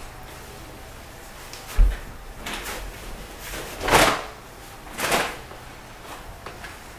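A single low thump, then the rustle of a cotton T-shirt being pulled off over the head: three swishes about a second apart, the middle one loudest.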